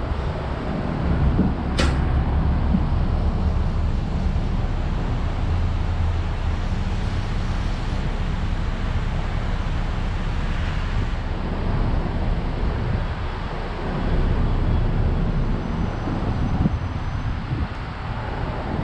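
A 2015 Isuzu NPR HD's four-cylinder diesel engine idling steadily, with a sharp click about two seconds in.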